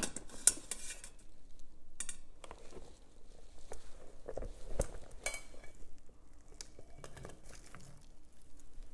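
Metal steamer basket clinking and knocking as it is lifted out of an Instant Pot's steel inner pot. Cooked potato slices then slide and tap as they are tipped from the basket into a ceramic baking dish. The sounds are scattered clicks and knocks, the sharpest about half a second in.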